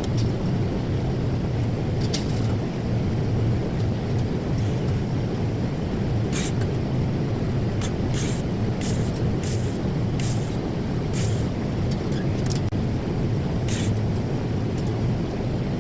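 TIG welding arc on a 3 mm stainless steel plate, a steady buzzing hiss while a vertical butt joint is welded, with short crisp ticks about twice a second from about six seconds in.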